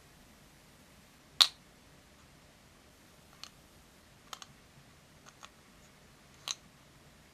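Small plastic miniature food pieces clicking and tapping as fingers handle them and set them into a tiny box: one sharp click about a second and a half in, then several lighter ticks, a few in quick pairs.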